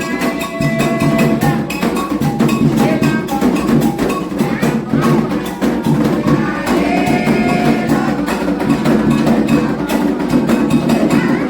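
Candomblé ritual music: atabaque hand drums playing a dense, steady rhythm with a metal bell, likely an agogô, ringing over them, and voices singing a chant.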